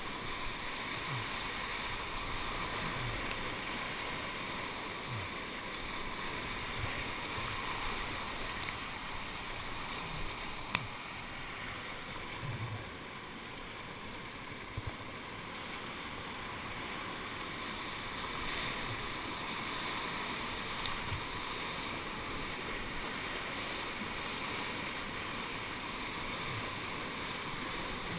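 Whitewater rapids rushing steadily around a kayak, with a few brief sharp knocks, the loudest about eleven seconds in.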